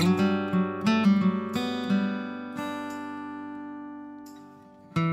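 Background music on acoustic guitar: a quick run of plucked notes, then a chord left ringing and slowly fading, with a fresh strum near the end.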